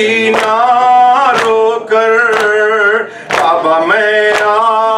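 A man recites a noha (Urdu mourning lament) into a microphone, sung unaccompanied in long, wavering held notes. Sharp beats about once a second keep time under the voice.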